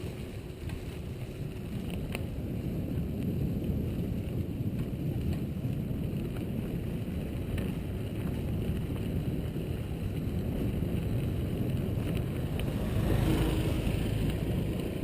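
Wind buffeting the microphone as a steady low rumble, with a few faint clicks and a brief louder gust near the end.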